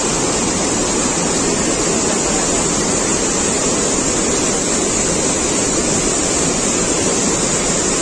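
Water pouring over a concrete weir and churning white down its face and into the stream below: a loud, steady rush.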